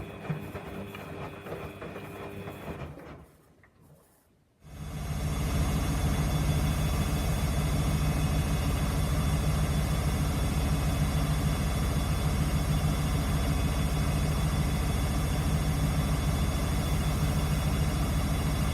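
Samsung washing machine running with a steady mechanical hum; after a brief lull about four seconds in, a louder, even motor hum with a low steady drone starts abruptly and holds without change, as the drum turns at a constant high speed.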